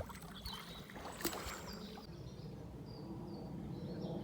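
Quiet outdoor lakeside ambience, a low steady background noise with a single faint click about a second in and a few faint high chirps midway.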